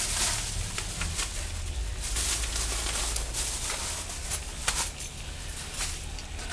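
Irregular clicks, knocks and rustles of supplies being handled and sorted out of a bag, over a steady low hum.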